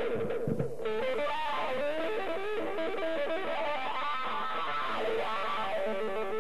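Background music: a guitar instrumental with quickly changing plucked notes.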